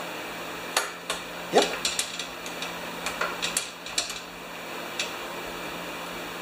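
Small quarter-inch Mastercraft socket ratchet clicking in short, irregular runs as it is worked back and forth to tighten a bolt holding the recoil starter on. The clicks fall mostly between about one and four seconds in, with one louder clack about a second and a half in.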